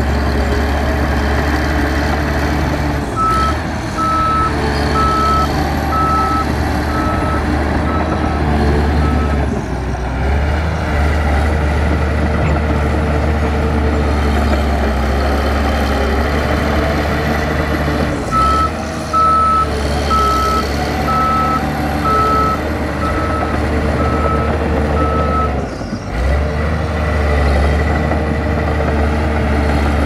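Heavy earthmoving machine's diesel engine running steadily under a loud drone. Its reversing alarm beeps in two runs of about ten evenly spaced high beeps each, roughly one beep every 0.7 s, signalling that the machine is backing up.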